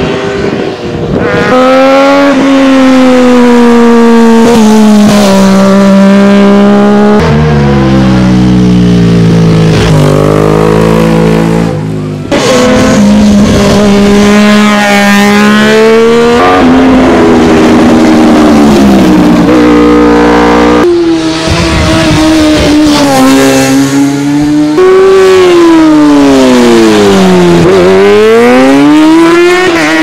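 Supersport racing motorcycles, Kawasaki 600s among them, at full throttle on a hill climb. The engines rev up hard and their pitch drops sharply at each gear change, again and again, and near the end a bike's engine note falls and climbs again as it passes.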